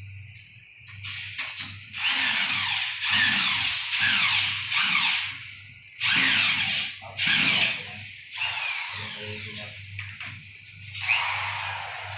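Corded electric drill boring into a wall in repeated bursts of one to two seconds, with short pauses between them.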